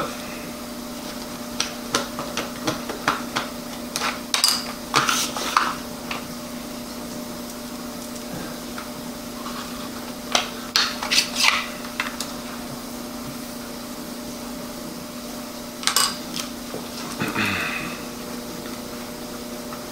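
Scattered clicks and light knocks of small hard objects being handled on a table, coming in short clusters, over a steady low hum.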